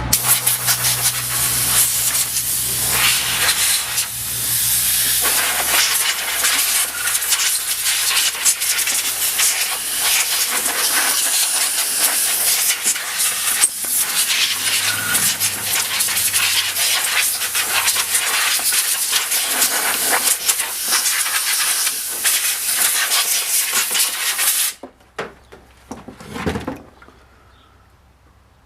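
A loud, steady hiss with fine crackling running for about 25 seconds, then cutting off suddenly; one short thud follows near the end.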